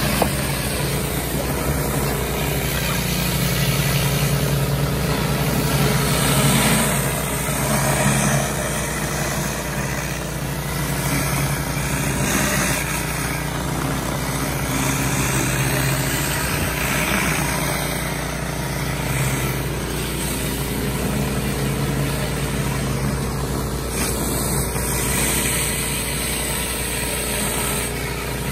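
Pressure washer running steadily under load, with the hiss of water spraying from a rotary surface cleaner being pushed across concrete.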